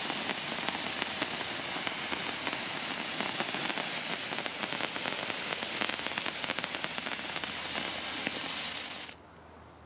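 BP30S Glow Party hand-held spark fountain burning, a steady dense crackling hiss of spraying sparks. It cuts off suddenly about nine seconds in as the fountain burns out.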